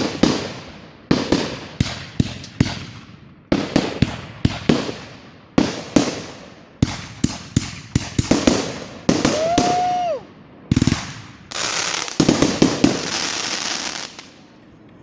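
Fireworks going off in a rapid, irregular string of sharp bangs and crackles with echoing tails. A short whistle comes about nine seconds in, and a steady hiss runs from about eleven and a half to fourteen seconds.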